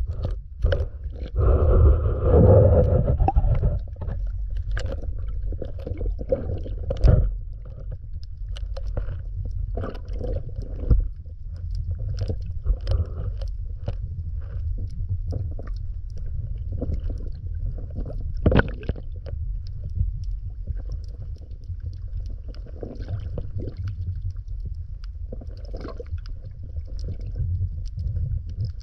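Muffled water noise picked up by a submerged camera: a steady low rumble with scattered clicks and pops. A louder rush of water comes about two seconds in, and a sharp knock about seven seconds in.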